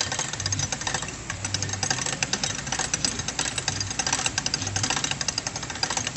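Hand-cranked souvenir penny-press machine: its crank and gears make rapid, irregular mechanical clicking as the crank is turned to set the design wheel.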